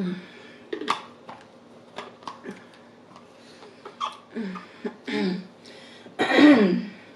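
A woman clearing her throat and coughing several times after a drink, the longest and loudest throat-clear near the end, with a few sharp clicks in between.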